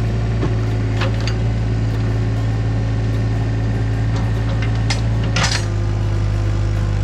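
Diesel engine of a compact earthmoving machine running steadily at a constant pitch, with a few short sharp clanks or scrapes over it, about a second in and again around five seconds in.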